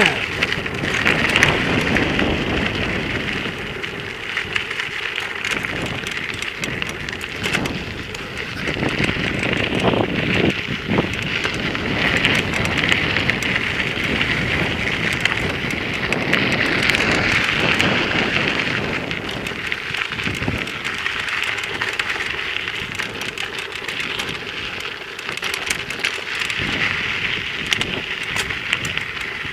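Steady crackling hiss of a mountain bike rolling over a dirt trail, its tyres on loose gravel, with wind and hand rustle on the microphone of a handheld camera.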